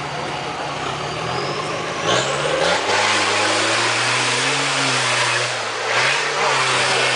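Off-road 4x4 engine revs up about two seconds in and is held high under full load as the vehicle climbs a steep muddy slope, with a rush of spinning tyres spraying mud over it.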